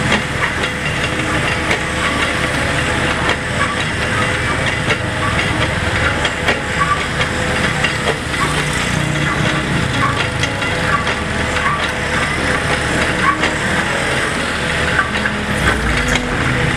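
Wheeled excavator's Yanmar diesel engine running steadily, with scattered clicks and knocks over it.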